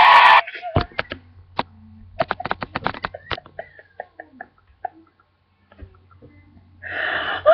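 A woman's stifled laughter behind her hands: a quick run of short breathy bursts in the first few seconds, then scattered snorts and sniffs, and a louder voiced laugh near the end.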